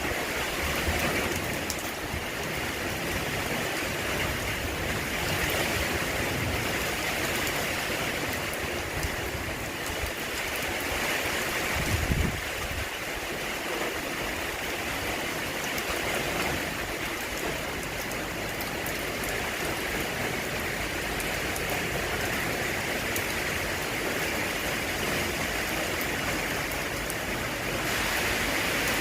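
Steady heavy rain falling, an even hiss of water. A brief low thump about twelve seconds in.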